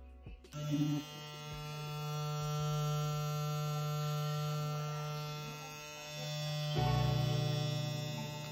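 Kiepe Diavel cordless hair clipper with a magnetic motor, switched on about half a second in and running with a steady buzz. The buzz gets louder about seven seconds in.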